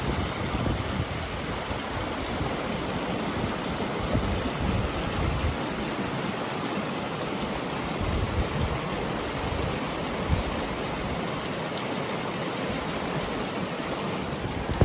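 River water flowing steadily, an even rushing noise.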